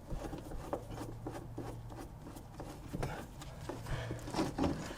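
Faint scattered clicks and rubbing from hand work on a car's interior headliner trim and its screws, over a faint low hum.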